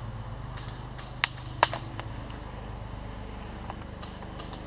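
A steady low hum with a few sharp clicks over it, the two loudest a little under half a second apart, between one and two seconds in.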